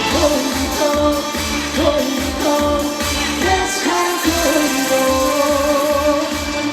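A man singing a pop-style Korean song with vibrato on held notes, over a backing track with a steady bass beat of about two pulses a second.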